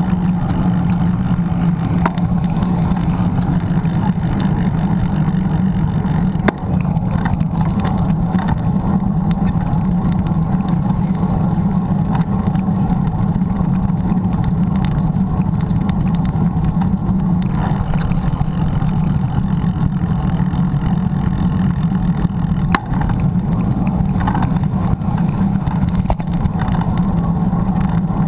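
Steady wind rumble on a GoPro's microphone and tyre noise as a mountain bike rolls along an asphalt street, with a couple of brief knocks.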